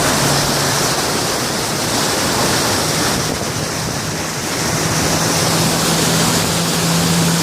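Four-wheel-drive vehicle wading through deep floodwater in low-range four-wheel drive: water rushes and splashes against the body in a loud, steady wash, with the engine running steadily underneath.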